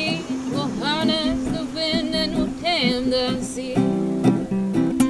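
Song with a voice singing over acoustic guitar; the singing stops about three and a half seconds in and strummed guitar chords carry on.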